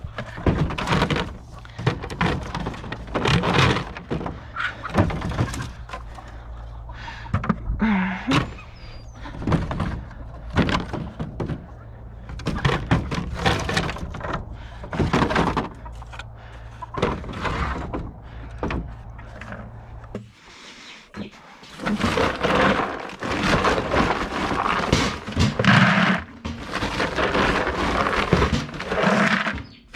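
Repeated knocks, thunks and clattering of objects being handled, over a steady low hum that cuts off about twenty seconds in.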